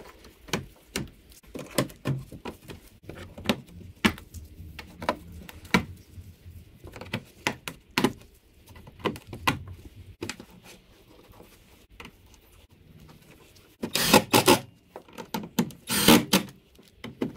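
A series of sharp plastic clicks and knocks as bumper-cover push clips and parts are pressed back into place. Then a cordless drill/driver runs in two short bursts, about 14 and 16 seconds in, driving the cover's screws back in.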